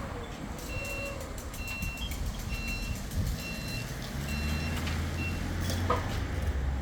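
A vehicle's reversing alarm beeping six times, about one beep a second, over the low hum of an engine that grows louder about four seconds in.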